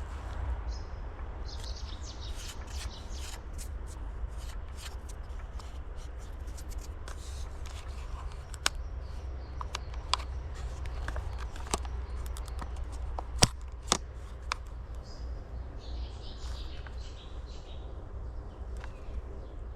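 Scattered sharp clicks and rustling over a steady low rumble, with two louder clicks about two-thirds of the way through; no engine is running.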